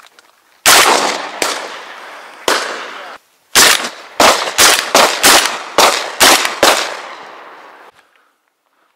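Shotgun fire at flying ducks, each shot followed by a long echoing tail. Three shots come about a second apart, then, after a brief break, a quick string of about nine shots, some less than half a second apart.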